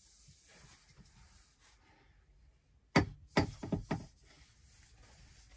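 A cluster of sharp knocks and clacks from a metal motorhome bunk ladder being lifted and moved, starting about three seconds in.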